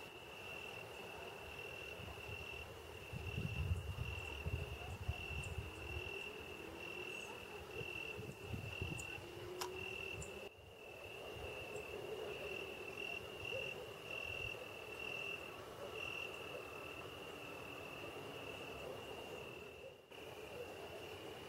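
Insects trilling: a steady, high-pitched chirring that pulses in short runs, with a low rumble about three to six seconds in and again near nine seconds.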